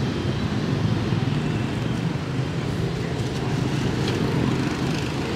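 Street traffic: motorbike engines running steadily, a constant low hum with no distinct knocks or cuts standing out.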